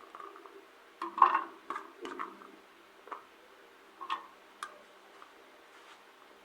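Light, irregular clicks and knocks from kitchen preparation, with cut ginger and bitter kola pieces being handled and put into a blender jar. There are about seven in all, the loudest a little over a second in.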